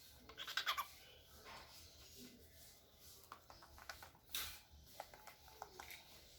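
Cockatiel chattering softly: a quick run of high chirps near the start, then scattered short clicks and chirps, with one sharper, louder call about four seconds in.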